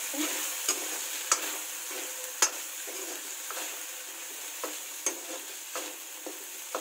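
Soaked sabudana (sago pearls) sizzling in ghee in a metal kadhai while being stirred and roasted with a spatula. Under a steady hiss, the spatula scrapes and clicks against the pan at irregular gaps, the sharpest knock about two and a half seconds in.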